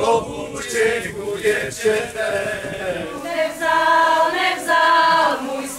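A group of voices singing a folk song together, holding long notes in the second half.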